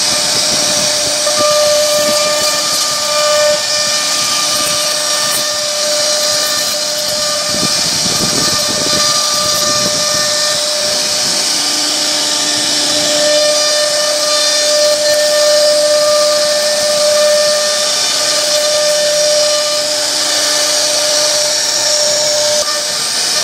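CNC router spindle running at high speed while its bit carves into a wooden door panel: a steady high whine over the hiss of cutting.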